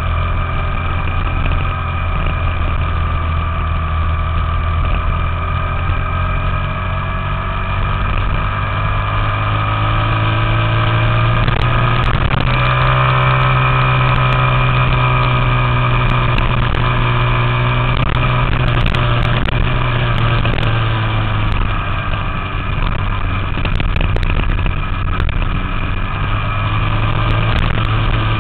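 Small Honda single-cylinder four-stroke minibike engine running steadily under way. Its pitch climbs about a third of the way in, holds, drops back after about twenty seconds, then rises again near the end.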